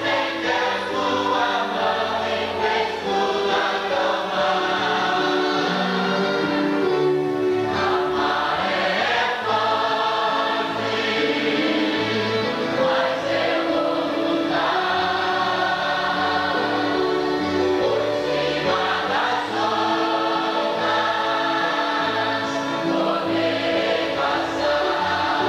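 A large church congregation singing a gospel hymn together in unison, a full choir of voices holding sustained notes.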